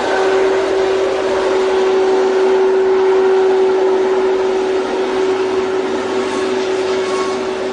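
A machine running steadily: a constant mid-pitched hum over a loud rushing noise.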